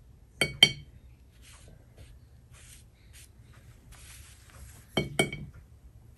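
Two pairs of quick, sharp clinks of a hard object knocking against a dish, each with a brief ring. The first pair comes about half a second in, the second about five seconds in.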